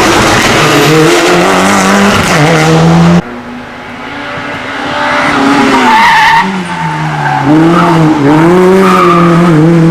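Hillclimb race car engines at full throttle. The first car's engine note steps up through the gears and cuts off abruptly about three seconds in. A second car then comes up loud, its engine note rising and dipping as it revs hard through gear changes.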